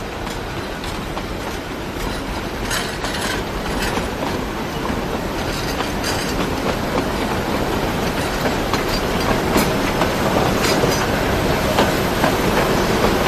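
Narrow-gauge train cars rolling past, wheels clicking over the track joints, the rumble growing steadily louder toward the end.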